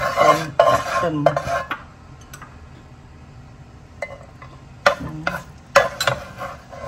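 A spatula scrapes and stirs in a nonstick saucepan of hot oil for about two seconds, then there is a short lull. Then minced garlic is spooned into the oil and stirred in quick strokes, sizzling.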